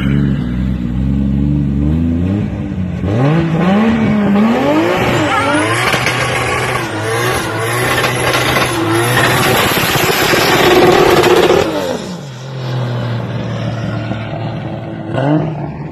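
Classic Datsun Z coupe's engine running steadily, then revving up and down over and over as its rear tyres screech and spin in a smoky burnout slide. It settles back to a lower, even note near the end.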